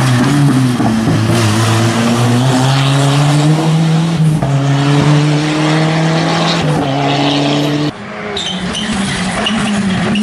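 Rally cars driven hard on a stage, engines running at high revs with the pitch rising and falling. The sound cuts off sharply about eight seconds in to a different, noisier car sound.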